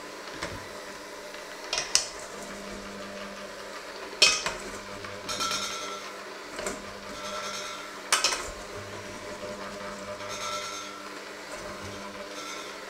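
Electric hand mixer running with its beaters working a stiff, crumbly mixture in a stainless steel bowl, the beaters scraping and clattering against the metal. Three sharp clanks of beater on bowl stand out, about two, four and eight seconds in.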